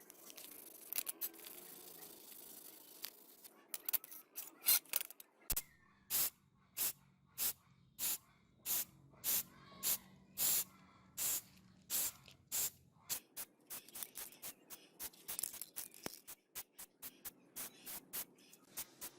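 Short bursts of aerosol spray paint hissing out over the model car, about one every second from a few seconds in, getting shorter and quicker near the end.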